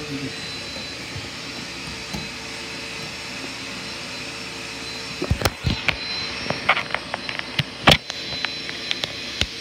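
Hair dryer blowing steadily, a steady whine in its noise fading about halfway through. Sharp knocks and bumps from handling follow in the second half.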